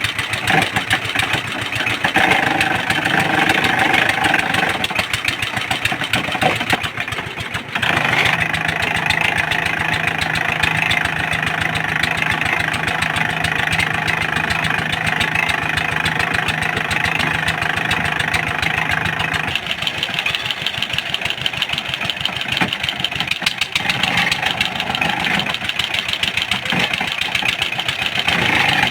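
Engine of a water-well boring rig running steadily, with a short dip just before eight seconds in.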